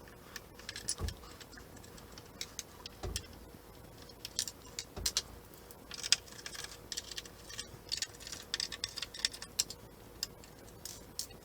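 Small hand-tool work on a 3D printer's plastic base: an irregular run of light clicks, ticks and scrapes as a Torx driver backs out screws and rubber feet are pried loose, with a few soft knocks of parts being handled.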